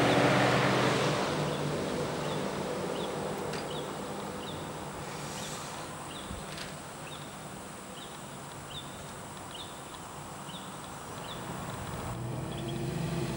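Diesel freight locomotive's engine and train noise fading over the first couple of seconds as the train backs away, leaving a short high chirp repeated about twice a second. The locomotive's low engine hum comes back near the end.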